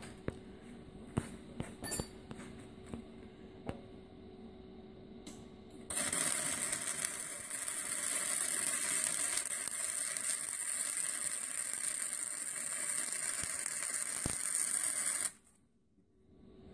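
MIG welder arc crackling and hissing steadily for about nine seconds while a bead is laid over a crack in a Model T's steel frame. It starts about six seconds in and cuts off suddenly near the end. Before it come a few light clicks and knocks.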